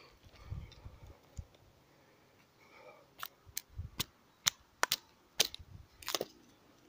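A spruce stick cracking and snapping as the blade of a large bushcraft knife, the Waldläufer XXL, is forced down through it lengthwise against a tree stump. There are about eight sharp cracks over roughly three seconds, starting halfway through, after a few soft knocks of the wood being handled.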